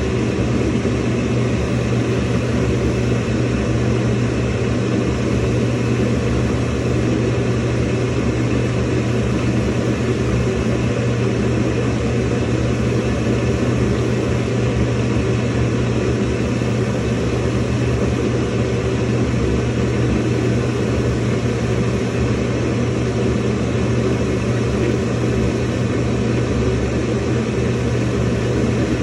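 Samsung washing machine filling with water: a steady rush of water with a constant low hum underneath.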